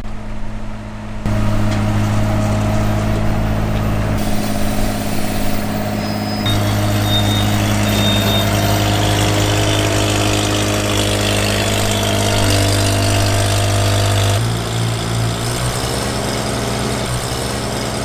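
Heavy diesel engines of a wheel loader and an Astec BF 400 side paver running steadily at low speed, a deep hum that shifts abruptly in pitch and loudness a few times.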